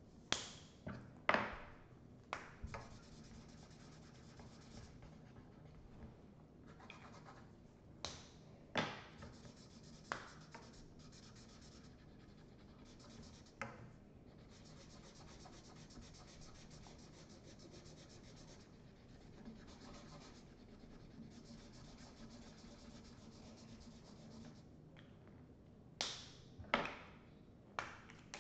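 Felt-tip markers rubbing and scratching across paper as two people colour, with a dozen or so sharp clicks, bunched near the start, around a third of the way in, and again near the end.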